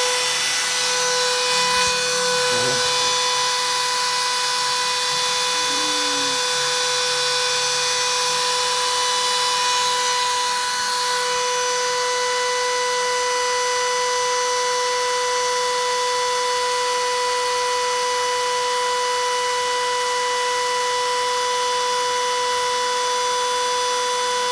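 Plywood-sheet-sized CNC router running, its spindle giving a steady whine over a constant hiss.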